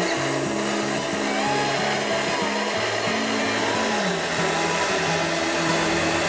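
Background music with a melody stepping through low notes, over a steady rushing hiss.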